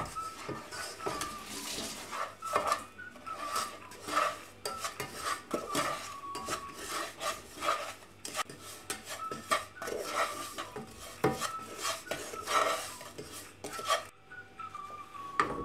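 Wooden spatula stirring and scraping a dry spice mixture around a non-stick pot, in irregular scrapes and light knocks against the pan.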